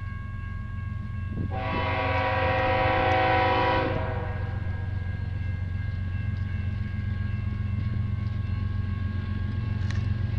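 Diesel locomotive horn (GE ES44C4) sounding one long chord blast of about two and a half seconds, starting about one and a half seconds in. Under it runs the steady low rumble of the passing train.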